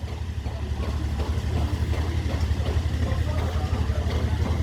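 An engine running steadily at idle, a low, even drone, with faint voices in the background.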